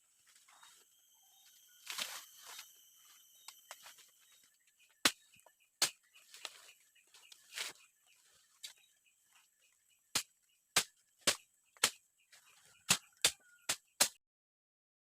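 Sharp knocks of wood being struck: a few scattered strikes, then a quick run of about eight knocks roughly half a second apart, over a faint steady high-pitched hum. The sound cuts off abruptly about a second before the end.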